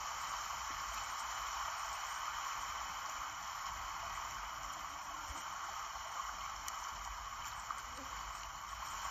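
Steady hiss of small waves in shallow sea water, heard tinny through a camera's small playback speaker.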